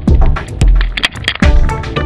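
Background music with a heavy drum beat and sharp, cracking hits.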